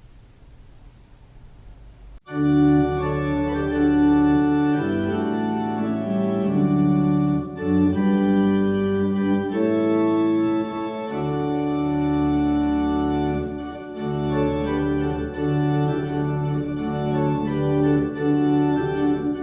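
Organ playing slow, sustained chords that change every second or two, starting about two seconds in after a quiet pause.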